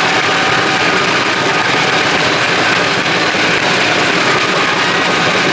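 Large crowd applauding and cheering, a steady dense noise.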